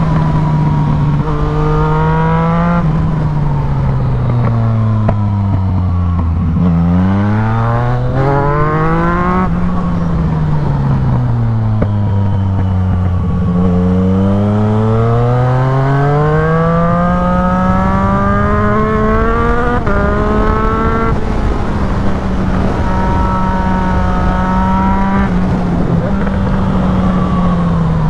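Yamaha MT-09's inline-three engine with a full Black Widow exhaust, ridden hard uphill. The note climbs under throttle, drops sharply on quickshifter upshifts, and twice falls away on the overrun through downshifts before building again, with wind rush underneath.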